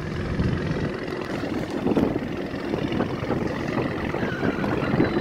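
Hennessey VelociRaptor 600 (2017 Ford Raptor) with its twin-turbo 3.5-litre V6 running steadily through an aftermarket exhaust. The exhaust note is deep and almost sounds like a V8.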